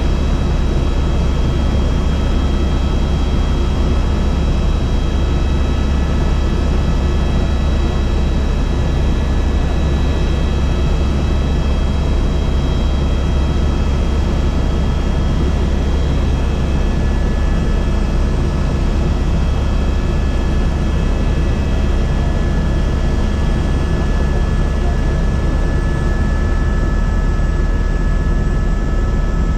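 Helicopter in flight: a loud, steady drone of rotor and turbine, with several steady high whining tones over it.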